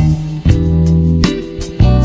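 Background instrumental music with guitar and bass notes over a steady beat.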